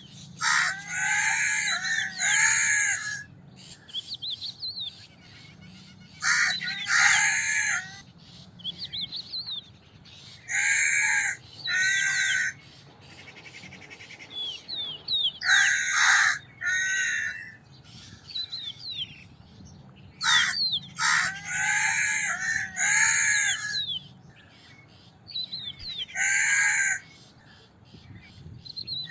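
Crows cawing in repeated bouts of two to four harsh caws every few seconds. Small birds chirp faintly between the bouts.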